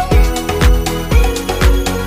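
Electronic dance music with a deep kick drum on a steady beat, about two hits a second, each hit dropping in pitch, under held synth notes.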